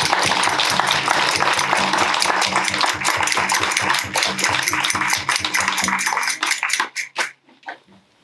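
Audience applauding steadily, then thinning to a few last claps and dying out near the end.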